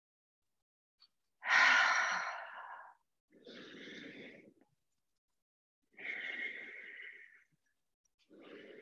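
A woman breathing audibly while moving through a lunge: a loud, long sighing exhale about a second and a half in, then three softer breaths.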